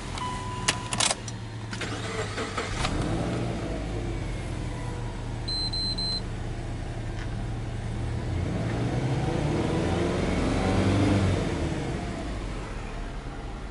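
Subaru Legacy 2.0GT spec B's turbocharged EJ20 flat-four being started: a warning chime and a few clicks, then the engine catches about two seconds in and settles into idle. Near the middle there is a brief high beep, and later the revs rise smoothly to around 2,000 rpm before easing back.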